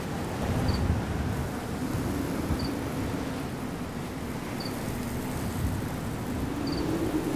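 Outdoor desert ambience: steady wind noise with a faint low drone that swells near the end, and a short, high double chirp about every two seconds.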